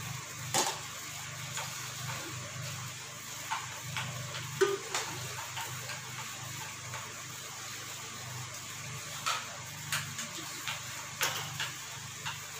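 Spoons clinking now and then against steel plates and bowls as two people eat, the sharpest clink about four and a half seconds in, over a steady low hum.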